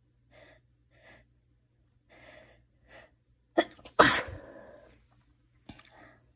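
A person sneezing, with what feels like a cold. Several short, catching in-breaths build up, then one loud sneeze bursts out about four seconds in and fades away. A short sniff follows near the end.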